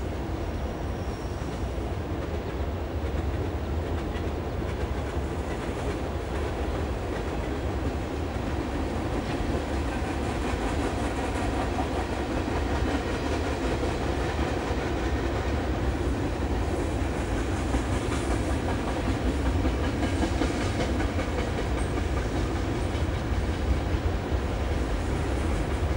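Freight train cars rolling past: a steady rumble of steel wheels on the rails with clickety-clack, getting a little louder in the second half.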